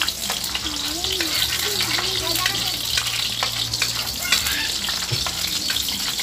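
Chopped garlic sizzling in hot cooking oil in a wok, with a metal spatula scraping and clicking against the pan as it is stirred.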